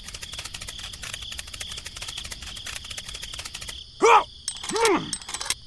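Insect chorus, cricket-like: a steady high buzz with rapid dense ticking. About four seconds in come two short calls, each rising then falling in pitch, louder than the chorus.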